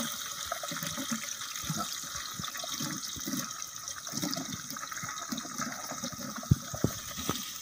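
Sliced onions sizzling as they are dropped by the handful into hot oil in a large pot: a steady hiss with small crackles, and a few sharper pops near the end.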